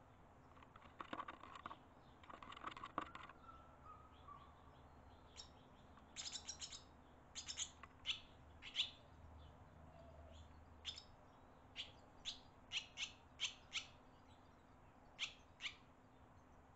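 Faint barn swallow chirps: short, sharp, high calls coming in quick runs of a few at a time, with a scratchier flurry in the first few seconds.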